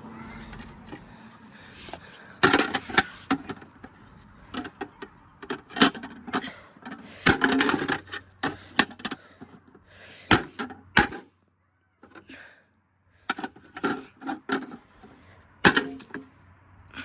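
Toy washing machine being broken apart: irregular clusters of sharp cracks, snaps and knocks, with a brief dead silence near the middle.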